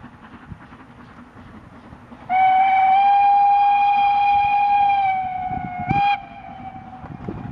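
Steam locomotive whistle: one long blast of about three seconds that sags in pitch as it fades, then a short sharp toot about a second later, over wind noise on the microphone.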